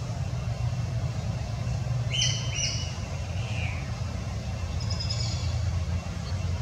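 Small bird chirping: two quick, bright chirps about two seconds in, a fainter one just after, and faint high calls near five seconds, over a steady low rumble.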